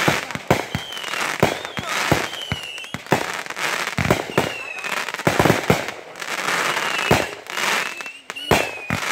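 Consumer aerial fireworks going off in rapid succession: a string of sharp bangs from bursting shells, with crackling and short high whistles between them.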